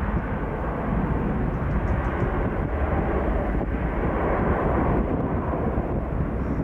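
Royal Jordanian Airbus A319's twin jet engines running at takeoff thrust as the airliner accelerates down the runway: a steady, deep rush of jet noise.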